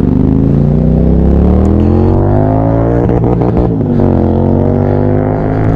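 Royal Enfield Interceptor 650's parallel-twin engine accelerating under way. Its pitch climbs for about three seconds and drops about four seconds in as it shifts up a gear, then climbs again.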